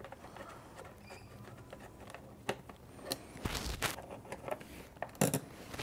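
Screwdriver working the screws out of a plastic airbox restrictor plate on a motorcycle: faint scraping and a few small clicks, with a louder knock about three and a half seconds in.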